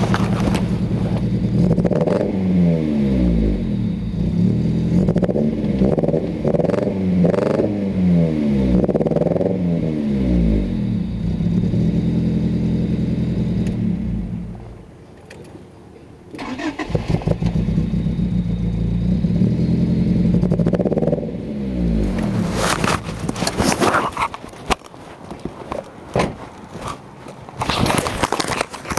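Honda D16Y7 1.6-litre four-cylinder engine, which has a misfire, revved up and down several times and then running steadily. About halfway it goes quiet for a couple of seconds, then runs again; near the end irregular clattering knocks take over.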